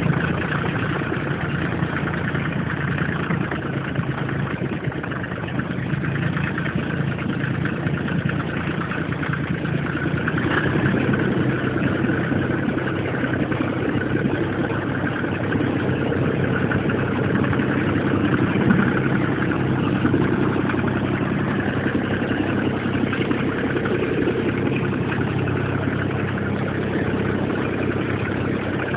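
Caterpillar C1.5 three-cylinder diesel engine idling steadily on its stand.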